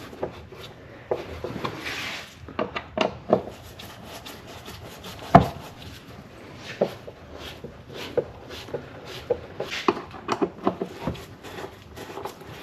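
Hand Phillips screwdriver driving screws back into a plastic airbox, with irregular clicks, knocks and rubbing of tool on plastic. One sharper knock comes about five seconds in.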